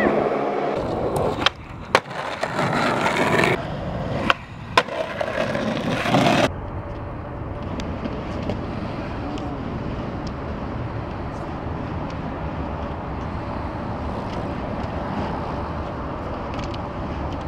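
Skateboard wheels rolling on concrete with a few sharp clacks of the board. About six and a half seconds in the rolling cuts off suddenly, leaving a steady, quieter rush of background noise.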